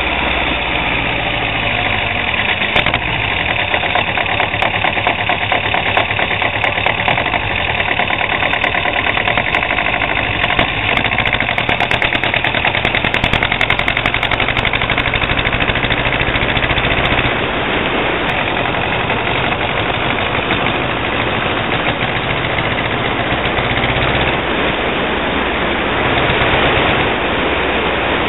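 Car engine heard from inside the car, running with a fast, dense rattle; its speed shifts up and down a few times over a steady road and wind noise.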